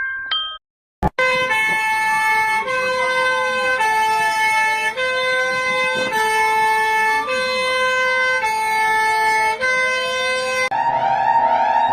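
Emergency alert system alarm tone. After a click, a chord of steady electronic tones steps to a new pitch about every second, over a siren wail that slowly rises and falls. Near the end it switches to a fast warbling tone.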